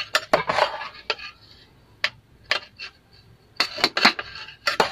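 Steel serving spoon clinking and scraping against a steel pot and plate while cooked rice is dished out. There are scattered sharp clinks, with a cluster of them near the end.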